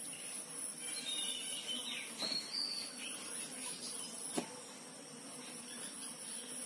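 Outdoor ambience: an insect trilling steadily on one high note, with a few short bird chirps in the first half and two faint knocks, about two and four seconds in.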